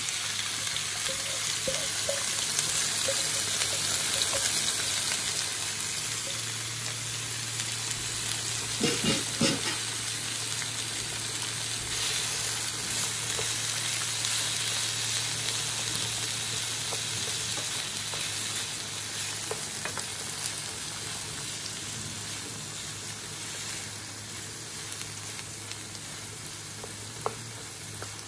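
Chopped onion, scallion and sweet pepper sizzling in hot oil in a frying pan as they are stirred with a wooden spoon. The sizzle is loudest just after the vegetables go in and slowly dies down. A low steady hum runs underneath, with a few knocks about nine seconds in.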